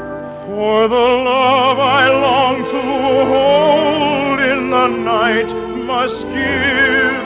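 Orchestra with a classically trained voice singing long, sustained notes with heavy vibrato, growing louder about half a second in.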